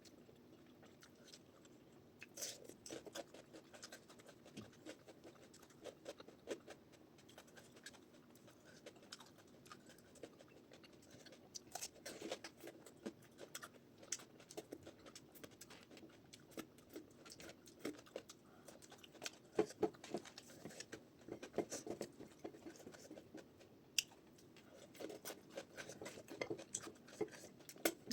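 Close-up eating sounds: a person chewing a meal of dal and rice, with irregular soft mouth smacks and small clicks.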